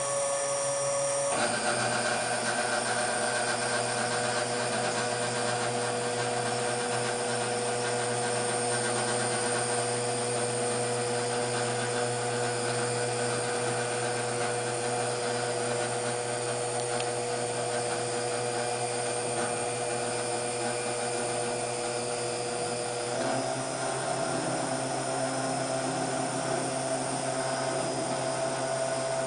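Gantry drive motors of a homemade CNC table whining steadily as the machine moves the tool head along a straight line. The pitch of the whine jumps about a second in and again near the end as the motion changes speed or axis.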